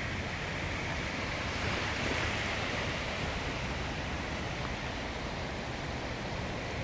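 Steady rushing hiss of heavy rain and floodwater running across a flooded street.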